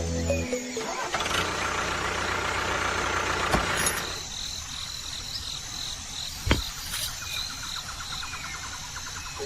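Small motor running with a steady low hum, with a louder rushing noise over the first few seconds and a couple of sharp clicks.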